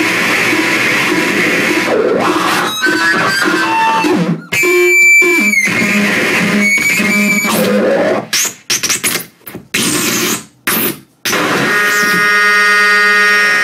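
Live harsh noise music played on electronics: dense loud noise laced with squealing tones, a stuttering chopped passage, and several abrupt cut-outs and restarts. Near the end it settles into a steady, harsh buzzing drone.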